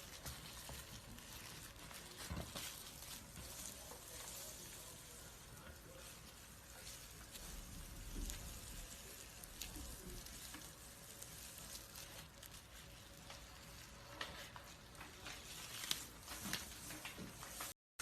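Snake skin being shed: dry, steady crackling and rustling full of tiny clicks, with a few sharper crackles near the end, then a brief silent cut.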